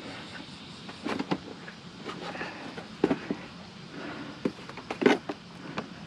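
Plastic parts of a motorcycle's bodywork being handled and worked loose: a series of short, irregular clicks and knocks, the strongest near the middle and about a second before the end.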